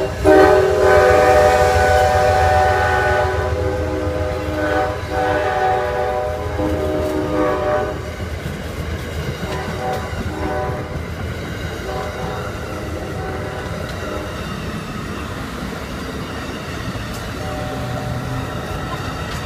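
Amtrak GE P42DC locomotives passing close by, the lead unit's multi-chime air horn blowing in long blasts, with short breaks, until about eight seconds in. After that, the steady rumble and wheel clatter of passenger cars rolling past.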